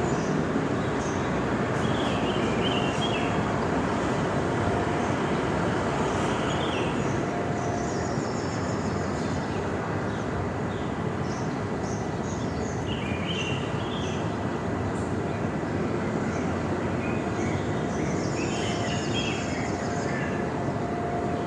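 Steady wash of surf on a beach, with birds chirping in short bursts every few seconds over it.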